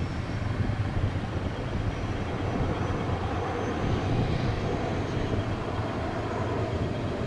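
Twin-engine jet airliner on short final approach: a steady engine rumble with a faint whine that slowly falls in pitch over the last few seconds as the aircraft comes in over the runway to land.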